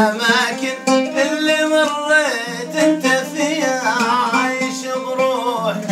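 An oud played by plucking, with a man singing over it in a long, wavering line that bends up and down in pitch.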